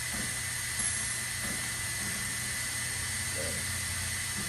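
Omniturn GT-75 CNC gang lathe running idle: a steady low hum and hiss with a thin, constant high tone.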